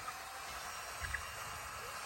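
Short bird chirps over a steady outdoor hiss, with a brief low thump about halfway through.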